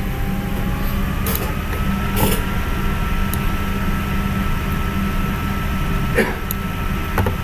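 Steady machine hum and hiss with a faint high tone that rises slightly about a second in, and a few sharp clicks.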